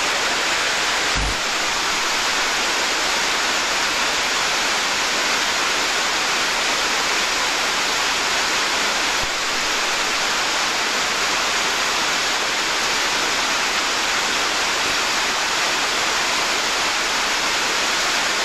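Steady rushing of white water pouring down a rocky waterfall.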